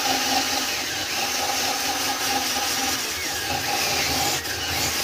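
Cordless drill spinning a wire wheel brush against the threads of an ATV drum-brake adjuster bolt clamped in a vise, scrubbing crusted grime and corrosion off the threads. The drill motor runs steadily under the scratching of the wire bristles on the metal.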